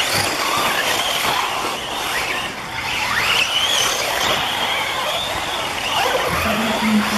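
Electric 1/8-scale RC buggies' motors whining as the cars race over the dirt track, the pitch rising and falling as they accelerate and slow. A brief low hum sounds near the end.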